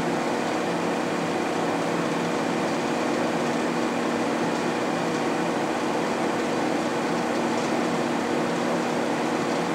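Tominaga radial arm drill press running, its geared spindle drive turning with the power spindle feed engaged. A steady mechanical hum with a few constant tones.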